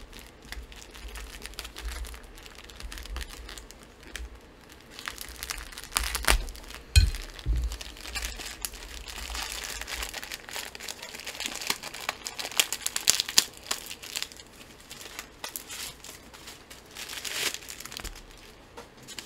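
Plastic wrapping on a book package being crinkled, torn and pulled off by hand, in irregular rustling bursts, with a few low thumps of handling on the table.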